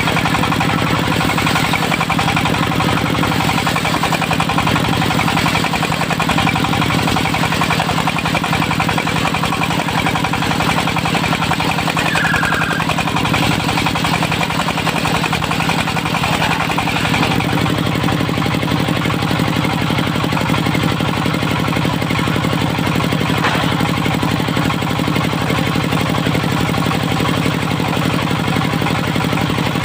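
Dongfeng diesel engine running steadily to drive a portable circular-saw sawmill. About 17 seconds in, the engine note shifts and a higher hiss above it fades.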